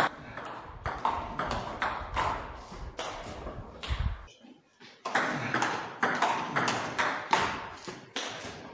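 Table tennis rally: the ping-pong ball clicking off the paddles and bouncing on the table, a sharp tick about twice a second. There is a short pause a little past four seconds, then the ticking of another rally starts.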